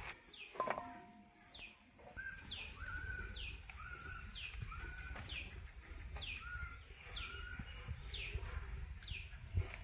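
A bird calling over and over. Each call is a high note that falls quickly, repeated about once a second, and shorter level notes sit between the calls.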